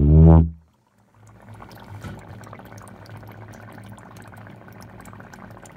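A low C tuba note sounds and cuts off about half a second in. After a brief pause, dry ice in water bubbles steadily inside the tuba, a continuous fizzing with many small pops.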